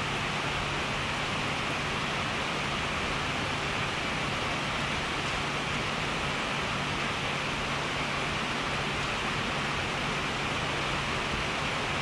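Steady rushing noise with a low, even hum from running barn equipment, unchanging throughout.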